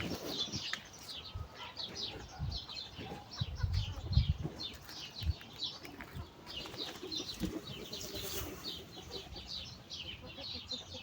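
Many small birds chirping together, with short high chirps overlapping without pause. A few low thuds come in near the middle.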